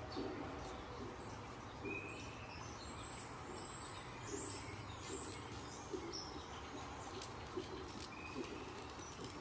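Small birds chirping intermittently, short high chirps and quick pitch glides, over a steady low background hum.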